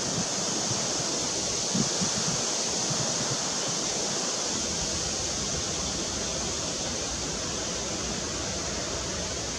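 Steady, even rushing hiss of outdoor background noise, with a couple of low bumps in the first two seconds.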